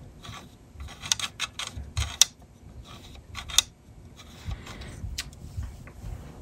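A disassembled Sony 800K floppy drive being handled and turned over: a handful of irregular light clicks and taps of its metal frame and plastic parts.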